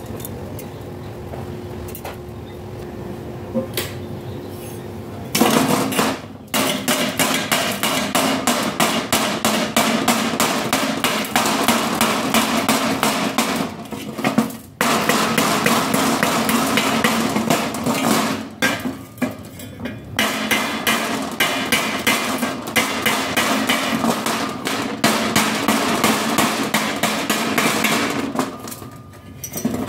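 Steel chipping hammer rapidly striking a fresh arc-weld bead on thin square steel tubing, knocking off the slag with sharp metallic taps several times a second. The chipping starts about five seconds in, after a low steady hum, and pauses briefly twice around the middle.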